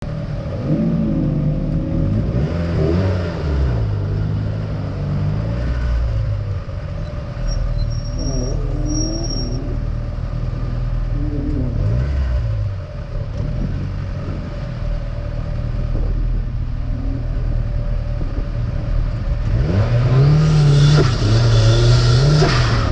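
Turbocharged Mazda Miata four-cylinder engine driven hard, revving up and falling back again and again through gear changes, with a brief high-pitched squeal about eight seconds in and a strong rev build near the end.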